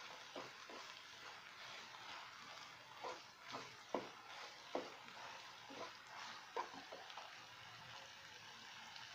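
Chopped onions, green chillies and curry leaves sizzling faintly in oil in a non-stick pan, stirred with a wooden spatula that scrapes and taps against the pan at irregular moments.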